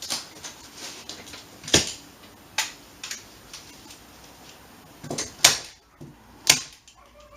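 Hand staple gun firing staples into tape strips over fiberglass insulation: a handful of sharp snaps at irregular intervals, the loudest three a second or more apart.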